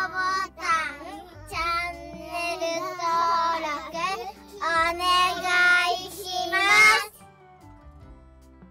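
A child singing over background music. The singing stops about seven seconds in, and quieter music goes on.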